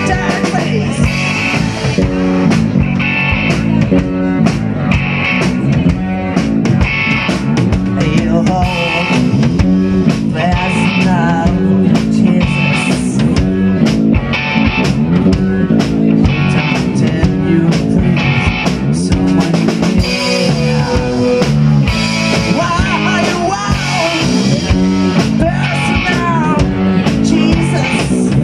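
Live rock band playing a cover song: electric guitars, bass guitar and a Sonor drum kit keeping a steady beat, with a lead vocalist singing into a microphone.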